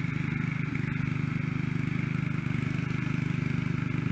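Snapper rear-engine riding mower's 8 hp Briggs & Stratton engine running steadily under load while mowing, with a fast, even firing pulse.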